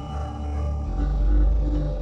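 Music: sustained low, droning notes with a deep bass tone swelling about halfway through.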